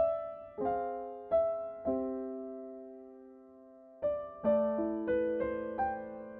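Background music: slow, gentle piano, single notes and chords struck and left to ring and fade. A chord struck about two seconds in dies away almost to nothing before the playing resumes at about four seconds.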